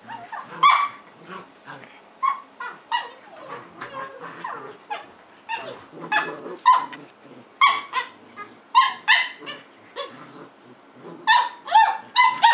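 Puppies barking and yipping in rough play: short high barks that come in quick runs, thickest near the end.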